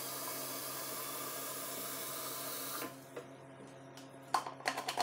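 Kitchen faucet running steadily into a plastic pitcher, shut off suddenly about three seconds in. Then a few sharp plastic clicks and knocks as the pitcher's lid is handled and fitted.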